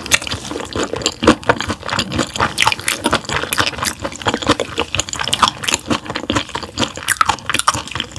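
Close-miked wet chewing of raw gizzard shad sashimi: a dense, irregular run of small moist clicks and crunches.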